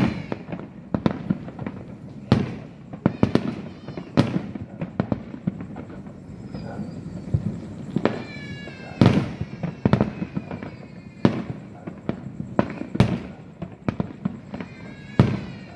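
Fireworks going off: an uneven series of sharp bangs and crackles, with high falling whistles about eight seconds in and again near the end.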